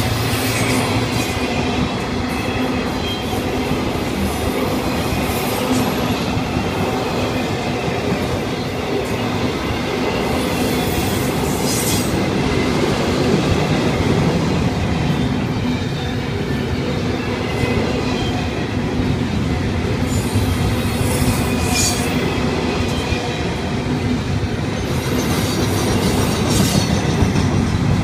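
Florida East Coast Railway double-stack container cars rolling past at speed, a steady rumble and rattle of steel wheels on rail. A few brief high wheel squeals cut in, about eleven, twenty-one and twenty-six seconds in.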